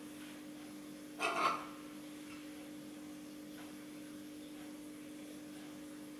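A dog gives a short bark about a second in, over a faint steady hum.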